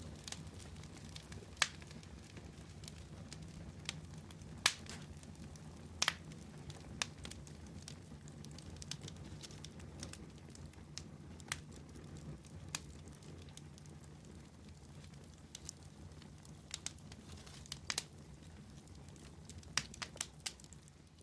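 Wood campfire burning: irregular crackling with sharp pops every second or so, over a steady low hiss of the flames.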